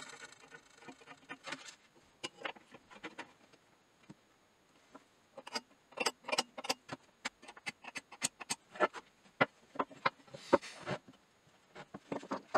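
A steel scriber scratching a line along a brass strip, followed by many sharp clicks and taps as a steel square and small tools are set against the strip on the wooden bench, with another short scratch of the scriber near the end.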